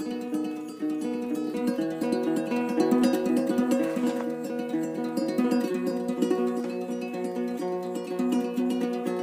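Acoustic guitar and ukulele playing an instrumental piece together, a steady run of plucked and strummed notes.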